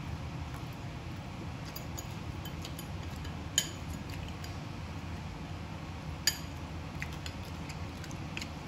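Metal fork scraping and clinking against a ceramic bowl, with scattered light taps and two sharper clinks about three and a half and six seconds in, over a steady low hum.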